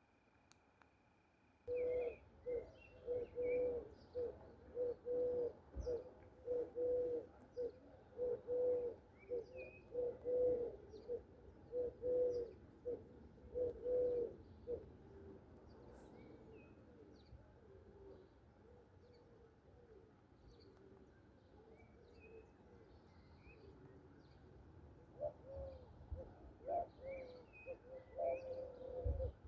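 A dove cooing in a long run of quick, low, repeated notes, about two a second, that fades out midway and picks up again near the end. Small songbirds chirp and twitter higher up throughout.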